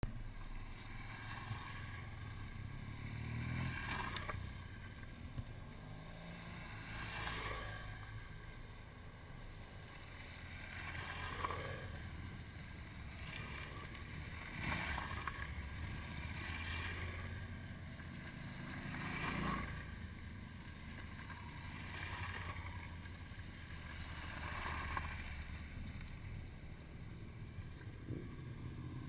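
Motorcycles running along a gravel road, heard under wind noise on the microphone, with a noisy swell every few seconds.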